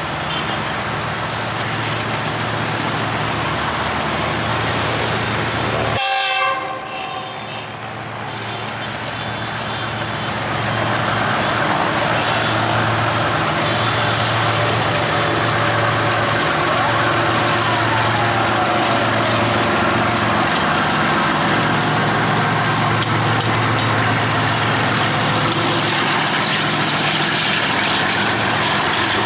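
GE ES43ACi diesel-electric locomotive's V12 GEVO engine chugging steadily under load as it hauls a freight train past. It grows louder about ten seconds in as it comes close, and freight wagons roll by near the end. A horn-like toot sounds briefly about six seconds in.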